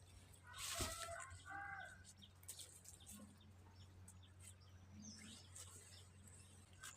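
Faint clucking of a chicken, a short run of calls about a second in, over a low steady hum.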